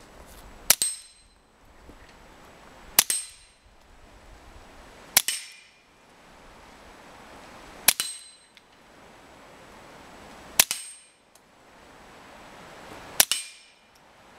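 A suppressed .22 LR pistol, a CZ-75 Kadet with a Brügger & Thomet suppressor firing subsonic rounds, is fired six times, about every two and a half seconds. Each quiet shot is followed by the clang of a steel gong being hit, which rings briefly.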